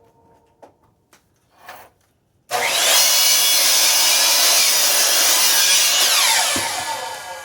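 A few light knocks, then a 10-inch compound miter saw's motor switches on with a rising whine and runs loudly for about three and a half seconds as the blade cuts through firewood. It then winds down with a falling whine.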